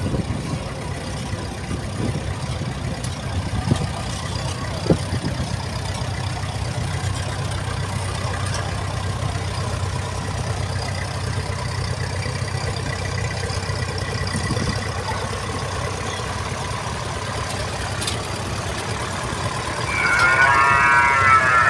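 Vintage grey Ferguson tractors running at a steady low rumble as they drive slowly past in procession, with a couple of short knocks about four and five seconds in. Near the end a louder wavering pitched sound comes in over the engines.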